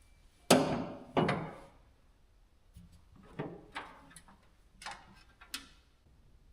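Series of knocks and clunks from handling hard objects: two loud ones about half a second apart near the start, then several lighter knocks and clicks.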